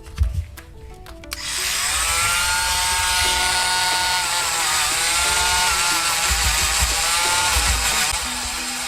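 A small power tool starts about a second and a half in and runs with a high whine over a grinding hiss. Its pitch sags and recovers as it bears on the work. Background music plays underneath.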